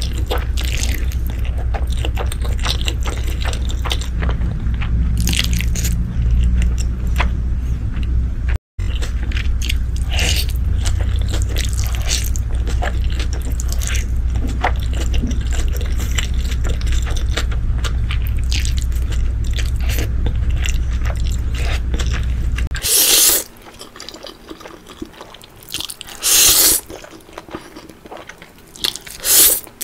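Close-miked eating: wet chewing, mouth clicks and slurping of black-bean-sauce instant noodles over a steady low hum. Near the end the hum drops away and three sharp slurps of spicy noodles follow.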